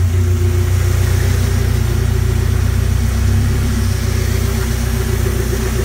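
Dune buggy sand rail's engine idling steadily shortly after a cold start.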